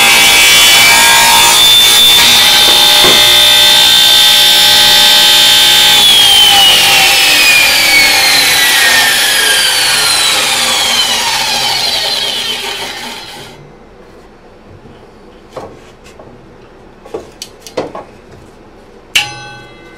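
Benchtop table saw running and cutting through a block of wood, with a high steady whine. It is then switched off, and the blade winds down with a whine that falls in pitch until it stops about 13 seconds in. A few light knocks of wood being handled follow, then one sharper knock near the end.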